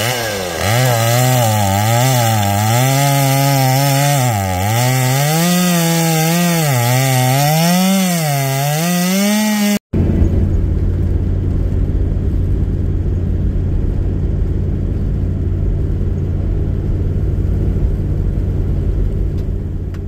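Chainsaw engine revving up and down, its pitch rising and dipping repeatedly as it is worked against a fallen branch. After a sudden cut at about ten seconds comes the steady low rumble and road noise of a 4x4 driving on a gravel bush track.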